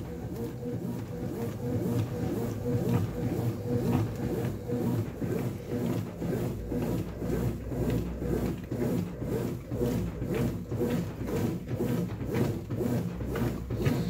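Brastemp top-load washing machine agitating a small load in soapy water on turbo agitation at the extra-low water level: a steady motor hum with a rhythmic churning of water and clothes.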